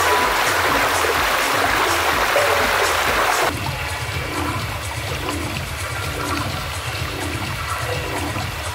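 Shallow stream water running over rocks, close and loud. About three and a half seconds in it cuts abruptly to a softer stream sound, with faint distant techno music keeping a steady beat underneath.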